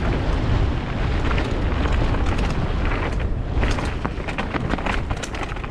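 Downhill mountain bike running fast down a rough dirt trail: a steady rush of wind on the microphone with a low rumble from the tyres, and the bike clattering and knocking over bumps and rocks.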